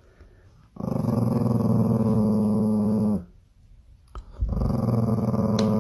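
Small dog growling in two long, steady growls, the first lasting about two and a half seconds and the second starting about a second after it stops.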